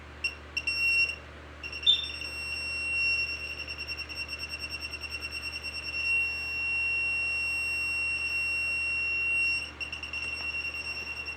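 Handheld RF detector sounding its high alarm tone. It gives a few short beeps, then runs on, pulsing rapidly at times and holding steady for several seconds in the middle. Its owner reads the alarm as a high level of radiation around him.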